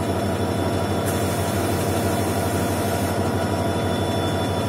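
Goods-train locomotive running with a steady low hum, heard from inside its cab. A high hiss joins for about two seconds, starting a second in.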